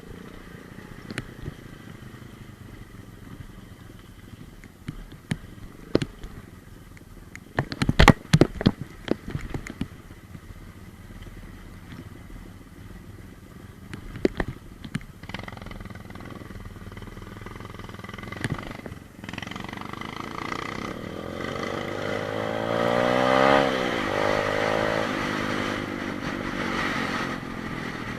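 125 cc pit bike engine running at low revs, with scattered clattering knocks and a loud cluster of them about eight seconds in. Later the engine gets louder and revs up, its pitch rising and then falling, before settling back.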